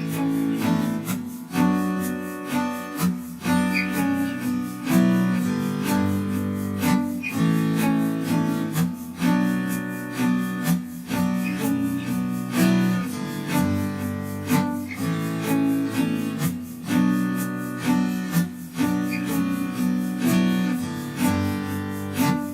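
Background music: plucked acoustic guitar strummed in a steady rhythm.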